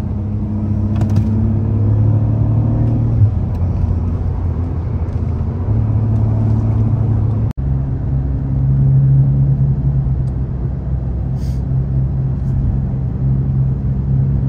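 Car engine heard from inside the cabin while driving. The note climbs in pitch over the first three seconds, then drops at a gear change, and after an abrupt cut near the middle it holds a steady, somewhat higher note at cruising speed.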